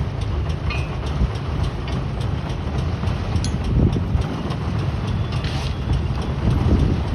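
Heavy pile-driving machinery running: a steady, dense low rumble with faint clicks over it and no distinct hammer blows.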